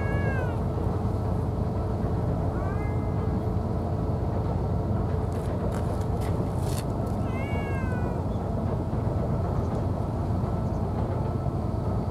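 A cat meowing: short calls that rise and fall in pitch, one at the start, one about three seconds in and another about seven and a half seconds in.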